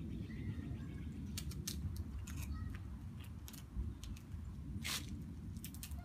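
Scissors snipping and duct tape crackling as the tape is cut away from a snake: a string of short sharp clicks, with a longer rasp about five seconds in, over a steady low rumble.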